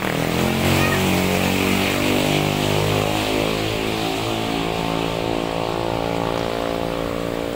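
A vehicle engine running steadily. Its hum drifts slowly in pitch and fades slightly near the end.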